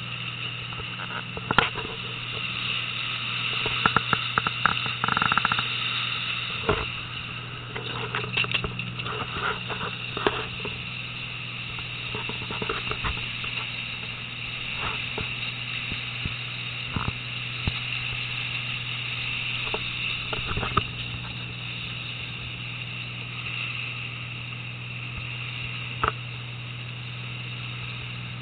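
Fishing boat's engine running at a steady hum over the rushing, churning water of the propeller wash, with scattered short knocks and clicks.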